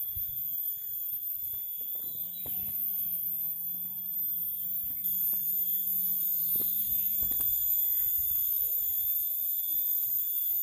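Steady high-pitched whine at several pitches at once, unbroken throughout, with a faint low hum from about two to seven seconds in and a few soft knocks.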